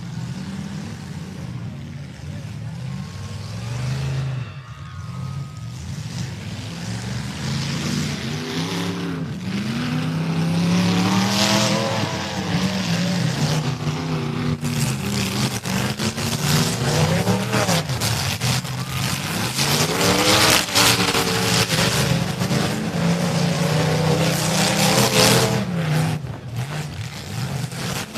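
Demolition derby cars' engines revving hard, the pitch swinging up and down as the cars drive back and forth, louder from about ten seconds in, with rattles and knocks mixed in.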